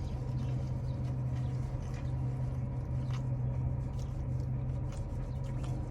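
Chewing and small wet mouth clicks from people eating fried chicken sandwiches, with light rustles and ticks, over a steady low hum.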